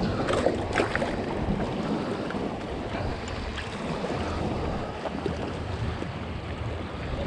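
Wind buffeting the microphone over surf washing against a rocky shore, with a few faint clicks in the first second.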